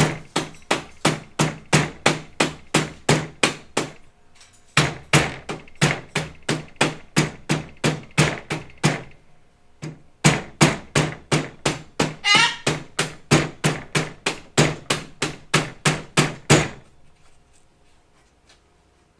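Hammer striking an aluminum sliding glass door's roller assembly to tap it back into the bottom rail. The blows come in three runs of quick, even strikes, about three a second, and stop near the end.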